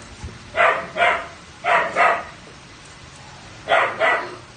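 A dog barking: six short barks coming in three quick pairs, with pauses between the pairs.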